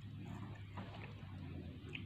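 Soft chewing and mouth clicks from eating pieces of mango, over a low steady hum.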